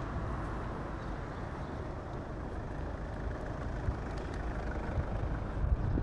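Steady rumble of road traffic.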